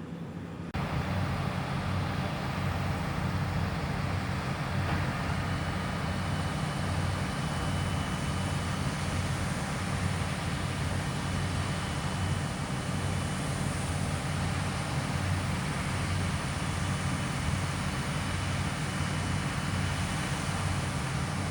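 Claas combine harvester running steadily with a low, throbbing engine drone under a constant mechanical rush, stepping up in loudness just under a second in.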